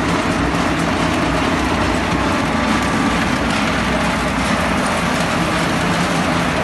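Sawdust-pellet production line machinery running: a loud, steady industrial din with a low hum underneath.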